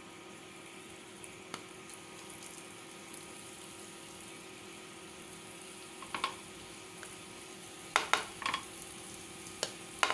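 Faint steady sizzle of oil heating in a nonstick appe pan as stuffed litti dough balls are set into its cavities, with a few soft knocks of dough and fingers against the pan, the clearest about six and eight seconds in.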